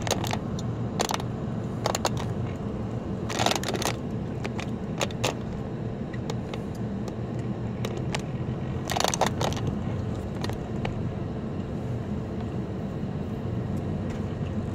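Steady low engine and tyre rumble inside a car cabin while driving slowly, with light clicks and rattles several times, the loudest clusters a few seconds in and about halfway through.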